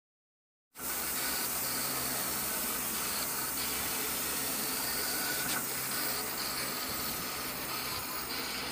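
Graphtec CE6000-60 Plus vinyl cutting plotter cutting blue sticker vinyl: a steady mechanical hiss and hum with short higher-pitched whirs that come and go, and a single click about five and a half seconds in. The sound starts abruptly just under a second in.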